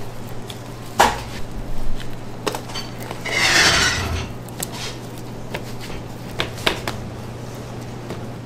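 Bakery kitchen work: scattered knocks and clinks of utensils and dishes, with a hiss or scrape lasting about a second just past the middle, over a steady low hum.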